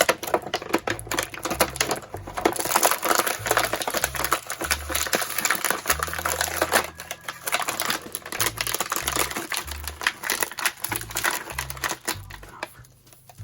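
Plastic toy packaging being handled and worked apart: a dense run of rapid clicks, crinkles and rattles as a figure is freed from its tray.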